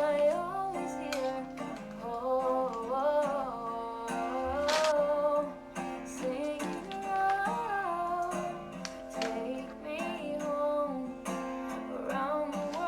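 Background music: a song with a woman singing over acoustic guitar.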